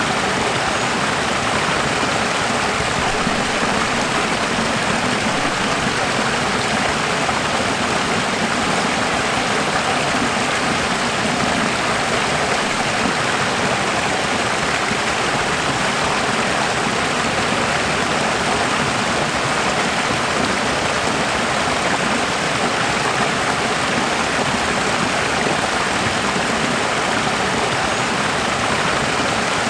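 Running water flowing steadily, an even rushing with no breaks or changes.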